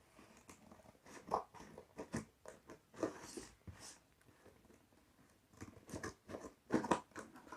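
Cardboard box and its packaging being opened and handled: irregular rustles, scrapes and light taps, busiest from about a second to four seconds in and again near the end.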